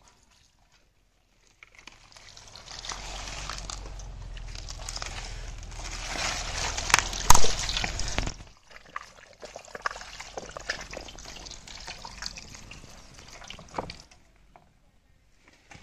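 Water poured from a plastic water carrier splashing onto whole raw chickens in a steel tray as they are washed by hand. The pour starts about two seconds in and stops at about eight seconds, with a couple of sharp knocks near its end. Scattered wet splashes and dribbles follow as the bird is rubbed and turned over the tray.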